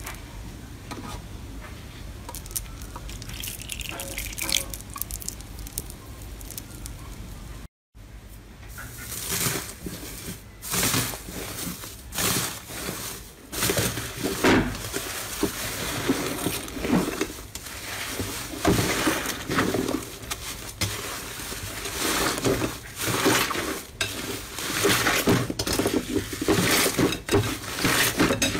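Foam-bead slime being pressed and crunched, fairly soft. After a brief cut to silence about eight seconds in, hands knead and stretch pink fluffy slime flecked with gold leaf in a glass bowl: a dense run of small wet pops and crackles.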